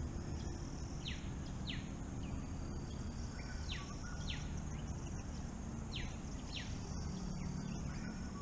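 A bird calling over and over with short, quick downward-sweeping notes, mostly in pairs. Behind it are a steady high-pitched hiss and a low rumble.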